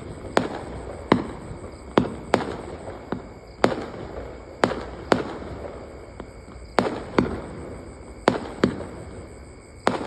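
Diwali firecrackers going off one after another: about a dozen sharp bangs at uneven intervals, each followed by a short echo.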